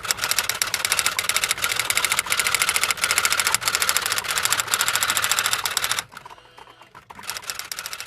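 Rapid, even mechanical clicking clatter for about six seconds, breaking off briefly and then starting again more quietly near the end.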